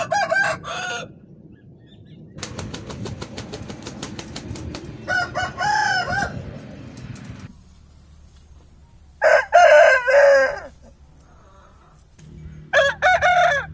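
Aseel roosters crowing, four separate crows of about a second to a second and a half each, the last cut off at the end. Between the first two crows comes a quick run of evenly spaced sharp pulses, about six a second.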